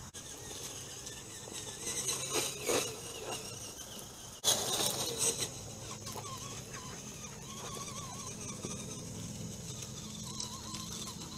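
Outdoor ambience with a steady insect drone. Two short bursts of rustling and crunching come in the first half, and a fainter wavering tone follows.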